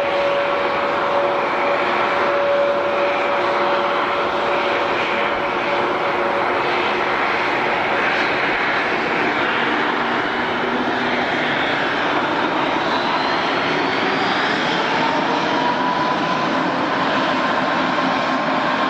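Airliner's engines running loud and steady, a broad roar with a whine on top that rises in pitch over the second half.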